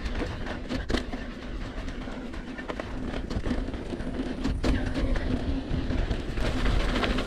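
Mountain bike rolling along a dirt trail: tyre rumble and wind on the microphone, with the bike clattering sharply over bumps a few times.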